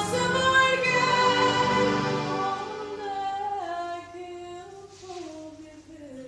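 A woman singing a slow song with keyboard accompaniment, holding long notes. The accompaniment thins out partway through, and the voice slides down in pitch over the last couple of seconds.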